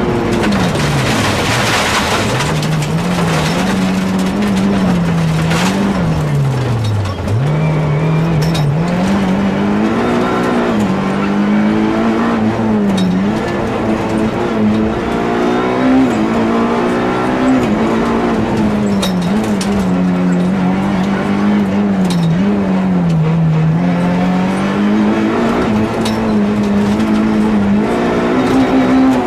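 Nissan Almera GTi's SR20DE 2.0-litre four-cylinder engine heard from inside the rally car at full attack, revs climbing and dropping again and again with gear changes and braking for corners, falling sharply about seven seconds in. Loose gravel hisses and knocks against the car beneath the engine, heaviest in the first few seconds.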